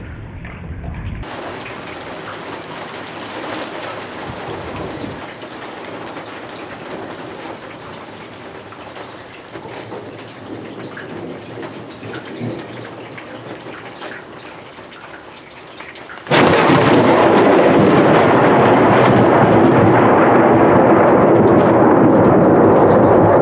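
Rain falling through a thunderstorm, with thunder rumbling in it. About sixteen seconds in the sound abruptly becomes much louder and stays there: a heavy, steady downpour.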